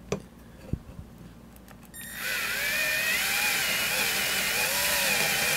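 Power drill starting about two seconds in and boring out a rivet that holds the nameplate on a grinder's motor housing. It runs steadily, with a whine that wavers in pitch as the bit cuts.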